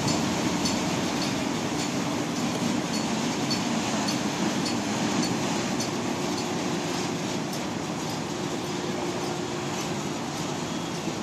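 Steel barge launched down a shipyard slipway: a steady rumbling rush of noise from the hull leaving the ways and the water churning around it, slowly fading as the barge floats free.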